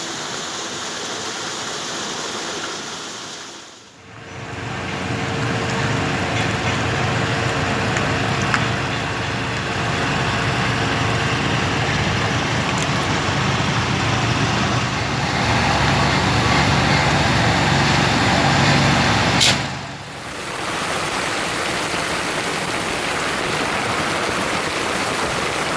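Rain falling for a few seconds. Then the engine of a wheeled hydraulic boat trailer runs steadily with a low rumble and, for the first half, a steady hum, ending in a sharp click. Then heavy rain falls on the sea.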